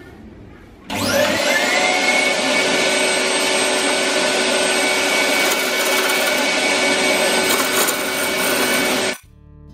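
Wood lathe switched on about a second in, its motor whine rising to speed, then a turning gouge cutting the spinning ironbark blank with a loud, steady hiss over the whine. The sound cuts off abruptly near the end.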